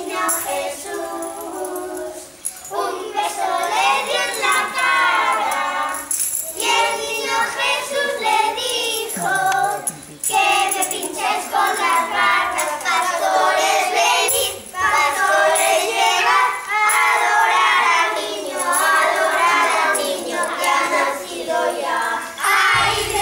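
A group of young children singing a song together, with tambourine and bell jingles from the small percussion instruments they hold.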